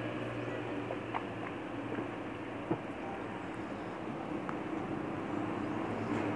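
A steady low mechanical hum runs throughout, with a couple of small sharp knocks as a drinking glass and a plastic food box are handled during a hand-eaten meal; the loudest knock comes a little under three seconds in.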